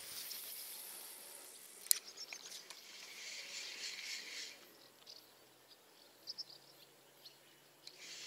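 Fishing tackle at work: a sharp click about two seconds in, then a spinning reel being wound for a second or so, with a few small ticks near the end.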